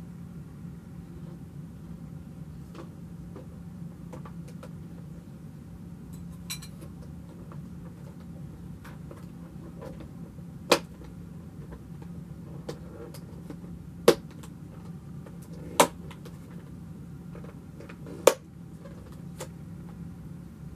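Cake being served onto plates: light clatter of a knife, plates and a clear plastic cake container being handled, with four sharp clicks in the second half, over a steady low hum.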